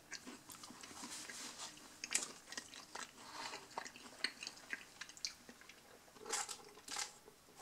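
Faint, close mouth sounds of a person chewing a soft raspberry cheesecake cookie: small wet clicks and ticks at irregular moments, a few louder ones.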